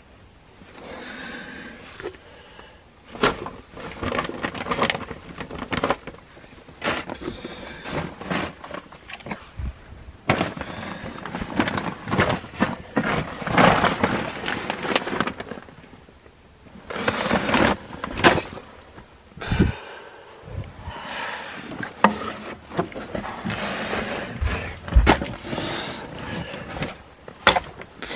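Scraping and scuffing of someone crawling over dirt and loose stones in a crawlspace, with irregular knocks and clatters throughout.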